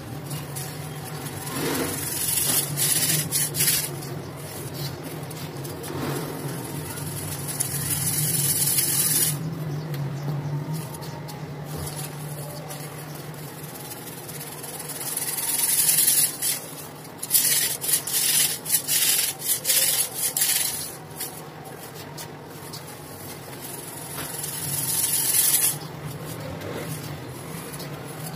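Dry, dusty cement pieces being rubbed, crumbled and snapped, sped up to double speed. The sound comes as scratchy, hissing rubs in several swells, with a quick run of crisp crackling snaps a little past the middle.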